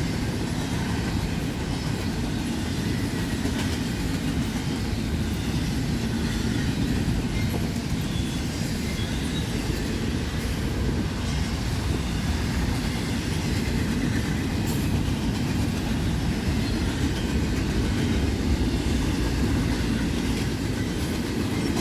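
Cars of a long passing train rolling by, a steady low noise of steel wheels on rail that holds even throughout as the tail end approaches.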